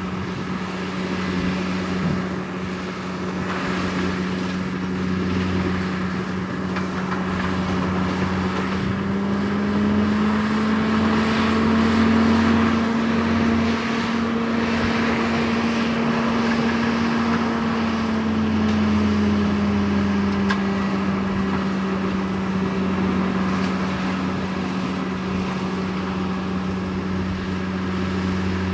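John Deere skid steer's diesel engine running a forestry mulcher attachment, a steady loud drone. Its pitch rises slightly about a third of the way in, holds, then settles back down about two-thirds of the way through.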